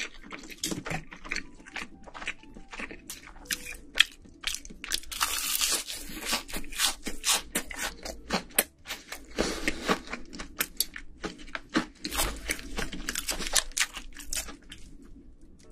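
Close-miked eating: chewing and crunching of food, with many short, crisp crunches coming irregularly and close together.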